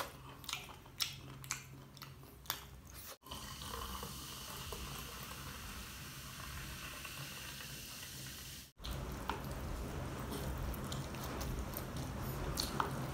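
Soda poured from a bottle into a glass of ice, running and fizzing steadily for about five seconds. Before and after it come eating sounds: sharp clicks and smacks of biting and chewing saucy fried shrimp.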